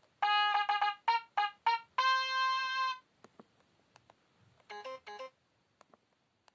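Sony Ericsson K530i mobile phone playing built-in electronic alert tones: a quick run of short synthesized notes ending in one held note about three seconds in, then, after a pause, a brief phrase of a few quick notes around five seconds.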